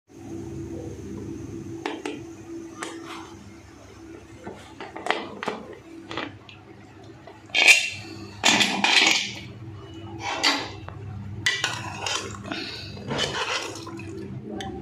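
A pressure cooker being opened and a steel ladle stirring the cooked meat inside it: irregular metal clinks, clanks and scrapes against the pot, loudest about halfway through.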